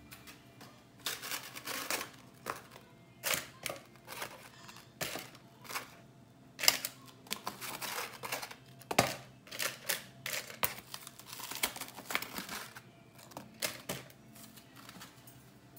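Irregular clicks and rustles: metal chopsticks tapping and scraping in a parchment-lined air fryer basket as raw meat slices are laid in, with crinkling of the paper liner and the meat tray.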